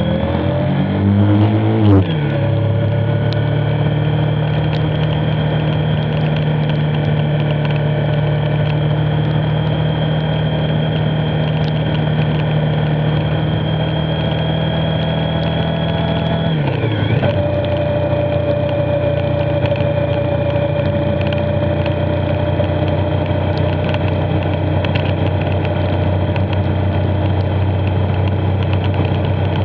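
Motorcycle engine revving up and dropping at a gear change about two seconds in, then running steadily at cruising speed. The revs dip and settle again about two-thirds of the way through. A steady rushing noise runs beneath.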